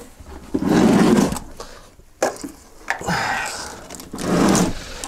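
A man's straining grunts and heavy breaths, twice, as he heaves on a heavy switch chassis of about 31 kg.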